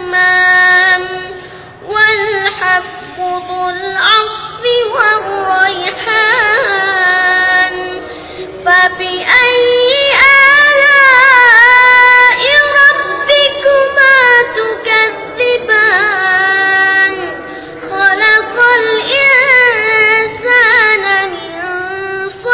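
A boy reciting the Quran in a high child's voice, in a slow melodic chant with drawn-out, ornamented notes and one long held passage near the middle.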